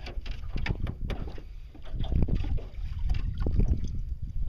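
Wind buffeting the microphone and water lapping against the jon boat's hull, a steady low rumble that grows louder about halfway through, with a few light knocks.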